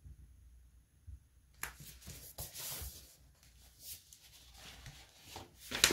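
Paper rustling and sliding as the dust jacket is worked off a hardcover book, starting about a second and a half in, with a few soft knocks of the book being handled.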